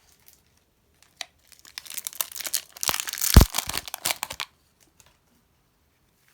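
Slime being pressed and stretched by hand, giving a run of crackling, crinkling sounds for about three seconds, with one heavier squish about three and a half seconds in.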